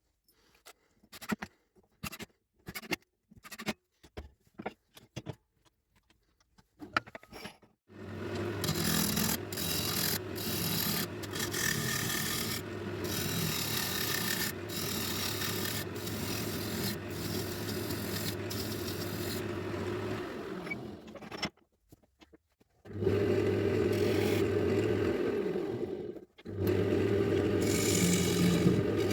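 A few scattered knocks, then a wood lathe running with a steady low hum while a tool cuts into a walnut blank, making a continuous scraping hiss. The cutting stops twice briefly before starting again.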